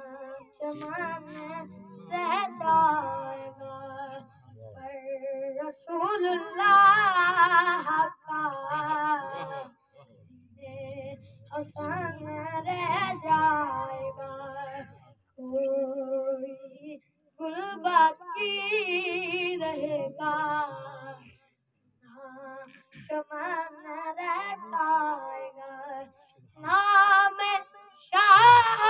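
A boy's high voice singing a naat, a devotional poem in praise of the Prophet, unaccompanied. The long melodic phrases carry wavering ornaments and are separated by short pauses.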